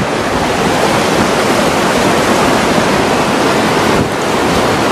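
Wadi in flash flood: a fast, muddy torrent rushing and churning in a loud, steady wash of water noise.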